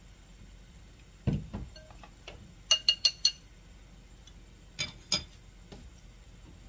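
Wooden chopsticks knocking against a glass mixing bowl of tempura batter. A dull knock comes first, then four quick ringing clinks, then two more a couple of seconds later.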